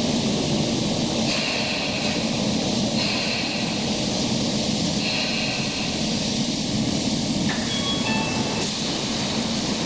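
Subway train running on the Tokyo Metro Fukutoshin Line, a steady rumble and hiss with brief high tones that come and go, and a short run of separate high notes near the end.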